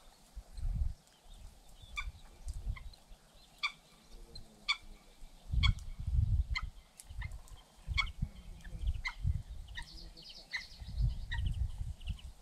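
A bird calling with short, repeated notes, one every half second to a second, and a brief higher warbling call near the end. Irregular low rumbling thumps come and go and are the loudest sounds.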